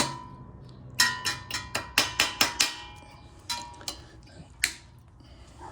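A quick series of light metal-on-metal taps, each ringing briefly, from a metal tool striking the cotter pin as it is bent over on the tie-rod end. About eight taps come close together, then three more spaced out.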